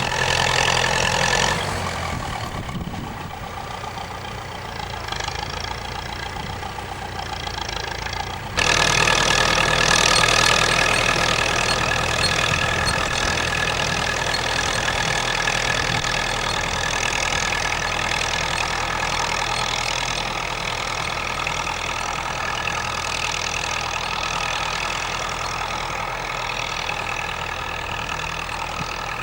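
Massey-Ferguson 65 tractor engine running steadily. It drops a little in level after a couple of seconds, then becomes abruptly louder about eight and a half seconds in and holds steady.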